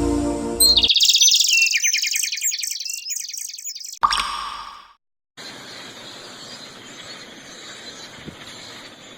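A small songbird singing a rapid, high-pitched trill of quick repeated notes that step downward in pitch, lasting about three seconds. It is followed by a steady hiss with faint high tones.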